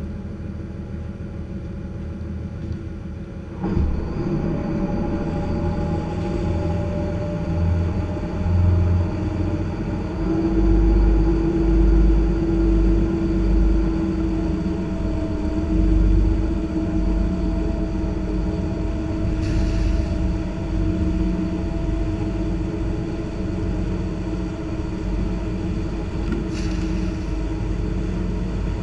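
Lobster boat's engine running. It grows louder about four seconds in as the throttle opens and the boat gets under way, then holds a steady humming drone with a low rumble.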